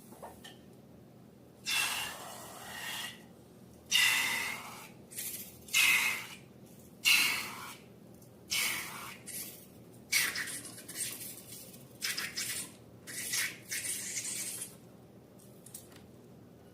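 Slime being squeezed and worked by hand: about a dozen short, wet squishing noises in quick irregular succession.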